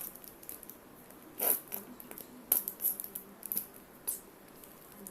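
Plastic squeeze bottle of Fevicol white glue being pressed, giving about five short sputtering squirts and squishes as the glue comes out.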